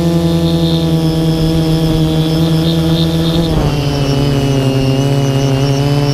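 Quadcopter drone's electric motors and propellers whining steadily, close to the camera. The pitch drops a step about three and a half seconds in as the motors slow.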